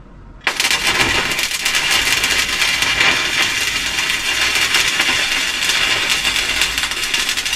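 Power metalworking on steel, throwing sparks: a steady, crackling hiss that starts abruptly about half a second in.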